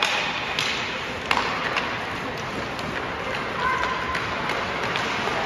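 Ice hockey play: hockey sticks clack sharply on the puck and on each other several times in the first two seconds, over the steady hiss of skates on the ice and the arena's background noise.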